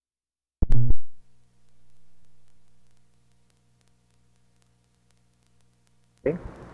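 A short, loud, low thump just over half a second in, like a microphone being bumped as the recording starts, followed by a faint steady electrical hum. Near the end a louder sound sets in.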